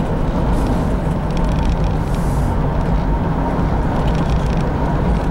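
Cabin noise of a 1997 Chevrolet Blazer driving at highway speed: a steady low drone of engine and road noise.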